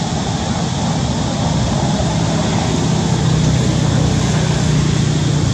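A motor engine running steadily in the background, its low hum growing a little louder about two seconds in.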